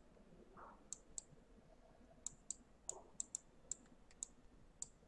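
Faint, irregular clicks of a computer mouse button, about a dozen in a few seconds, as strokes are drawn with the mouse in a paint program.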